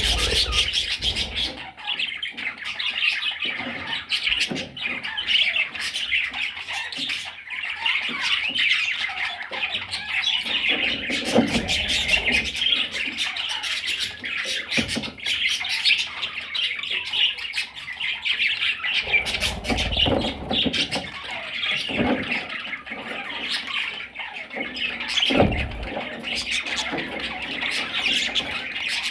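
Budgerigars, small parrots, chattering and squawking without pause in a busy, overlapping chorus of short calls. A few low rumbles come through about two-thirds of the way in and again near the end.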